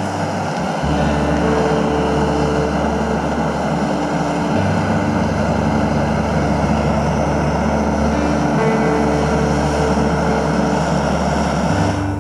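Background music of sustained low notes and held chords that change every few seconds, over a steady rushing noise.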